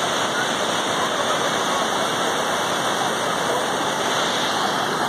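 Steady rushing of a shallow mountain stream flowing over a rocky bed.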